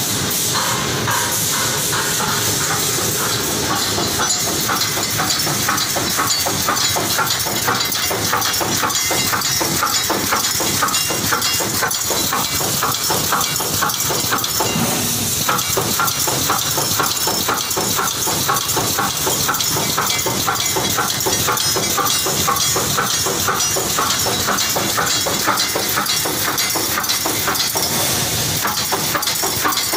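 DP-AW-1200H automatic pneumatic chicken cage mesh welding machine running: a rapid, regular clatter of feed and weld strokes over a steady hiss.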